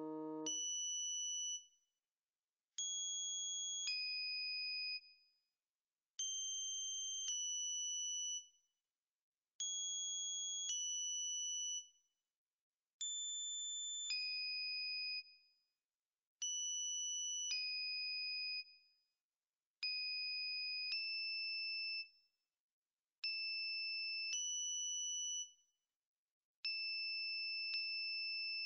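High, pure electronic tones in two-note pairs: each note is held steady about a second, the second note usually lower than the first, and the pair repeats about every three and a half seconds with a second of silence between, eight or nine times in all.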